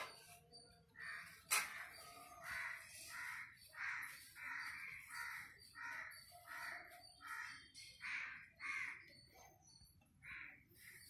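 A bird calling over and over in about a dozen short calls, roughly one and a half a second, with a single sharp click about a second and a half in.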